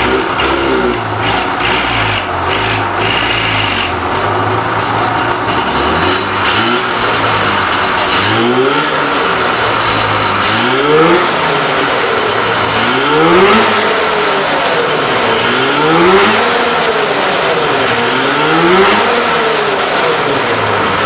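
Vintage Polaris snowmobile's liquid-cooled 340 two-stroke twin running, first at a steady idle, then blipped on the throttle about five times in the second half, each rev rising and dropping back to idle.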